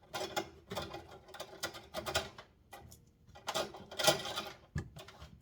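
Irregular clicking, scraping and rattling of hard plastic parts as a head spa basin's water pump is twisted loose and handled, with a louder clatter about three and a half seconds in.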